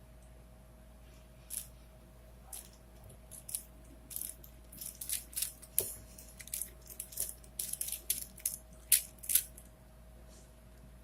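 A plastic 4x4x4 Rubik's cube (Rubik's Revenge) being turned by hand, its layers clicking as they rotate. There are a few separate turns at first, then a quick run of turns through the middle and later part that stops shortly before the end.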